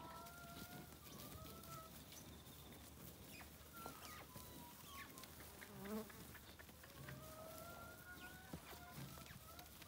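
Faint buzzing of flying insects, the pitch gliding up and down as they pass close and move off, with a few soft clicks and thuds from cattle hooves on grass.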